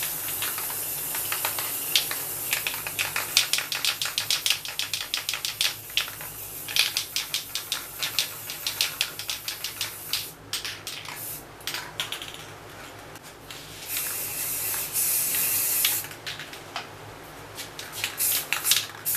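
Aerosol spray paint can hissing in many quick, short bursts, then one steady spray of about two seconds past the middle, followed by more short bursts near the end.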